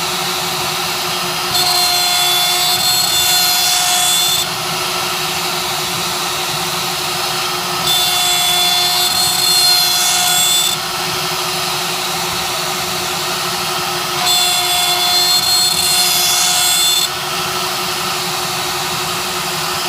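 CNC machine running with a steady hum. Three times, about every six seconds, it goes louder for about three seconds with a high whine and hiss, as a repeated machining move.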